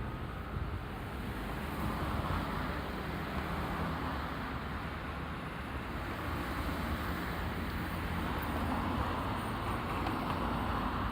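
Traffic noise at a road intersection: a steady wash of cars, swelling as vehicles pass about two seconds in and again near the end.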